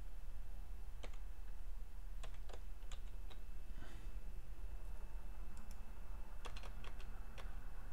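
Computer keyboard keystrokes: a few scattered taps in small clusters of typing, over a faint steady low hum.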